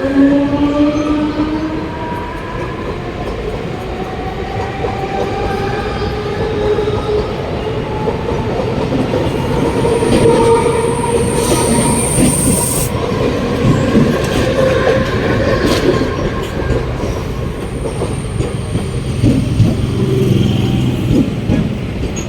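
Mumbai suburban electric multiple-unit trains running past, with the whine of the electric traction motors rising in pitch in the first couple of seconds over the steady rumble and clatter of wheels on rails. A high wheel squeal comes in about halfway through and again, fainter, near the end.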